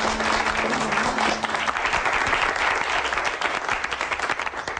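Audience applauding with many dense hand claps, which die away near the end. Light background music plays under it for the first couple of seconds and then fades out.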